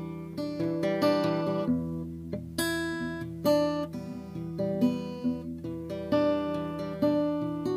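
1968 Yamaha S-70 acoustic guitar played solo: a run of picked and strummed chords and single notes, each attack ringing out before the next, about one every half second to a second.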